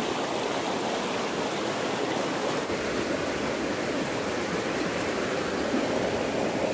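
Small, shallow forest stream running over rocks and around a jam of sticks and dead leaves: a steady wash of flowing water.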